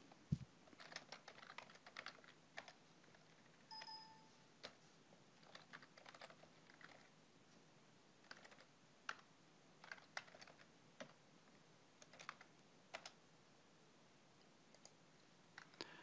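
Faint typing on a computer keyboard: scattered, irregular key clicks, with a brief faint beep about four seconds in.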